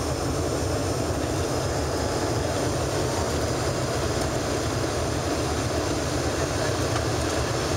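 Steady in-cabin drone of an Embraer ERJ-145 regional jet on approach to land: its two rear-mounted turbofan engines and rushing air, even and unchanging.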